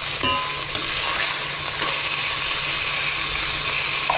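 Chicken breast sizzling steadily as it fries in olive oil in a frying pan, with a short clink about a quarter second in.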